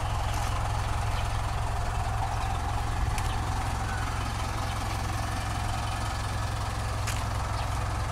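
Mitsubishi Montero Sport's 2.5-litre turbodiesel engine idling steadily, a low, even rumble.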